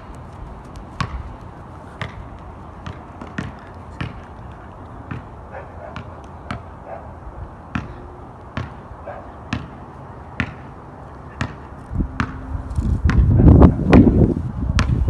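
Basketball bounced on pavement, dribbled in single knocks at an uneven pace of about one a second. A louder low noise comes in near the end.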